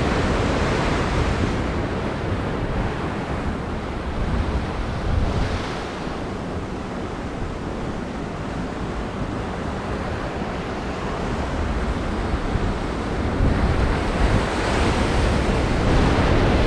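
Heavy ocean surf breaking and washing over rocks, with wind buffeting the microphone. The wash swells and eases, growing louder near the end.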